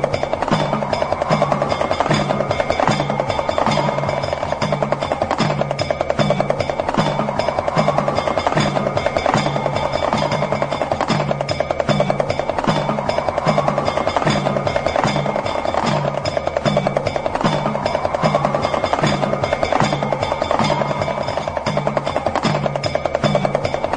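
Meditation music built on a damru (Shiva's hourglass hand drum) rattling in very fast, continuous strokes. Under it runs a steady low drum beat a little more than once a second, over held ringing tones, with a sweep that rises about every seven seconds.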